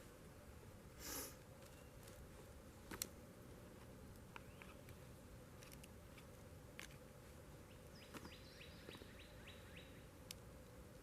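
Near silence in the woods, with a brief rustle, a few faint clicks and taps of gear being handled, and a quick run of faint bird notes about eight seconds in.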